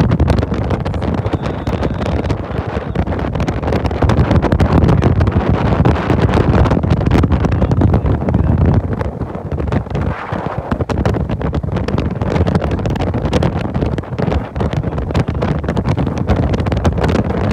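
Heavy wind buffeting the microphone over a steady low rumble.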